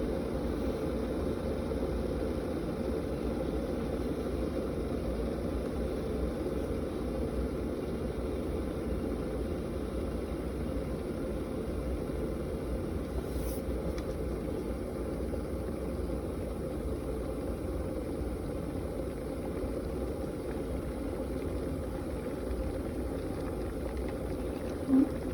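Paderno 1.7-litre electric kettle heating water close to the boil, giving a steady low rumble with no let-up.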